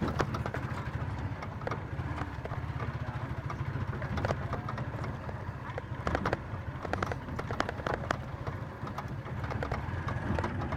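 A vehicle engine running steadily as it drives, with frequent short knocks and rattles from the body over a rough road.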